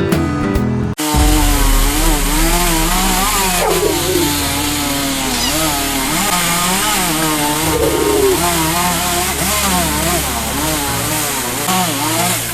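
A chainsaw running, its engine pitch rising and falling over and over as it cuts. Music plays for about the first second before a sudden cut to the saw.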